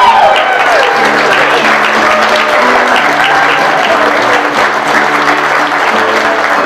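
Audience applauding, with instrumental music playing underneath.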